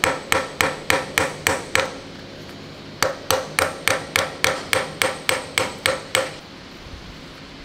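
Hammer striking a brass drift against the slotted locknut of a tank road-wheel hub, knocking the nut round to loosen it. Steady metallic taps come about three a second, each with a short ring, in two runs with a pause of about a second between them, and stop a little over six seconds in.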